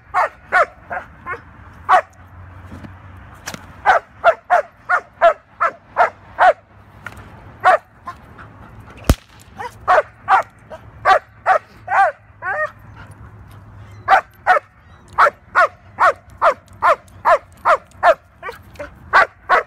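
A young German Shepherd barking hard at a decoy in protection training. The barks come fast, about two or three a second, in four volleys with short pauses between them. A single sharp crack comes about nine seconds in.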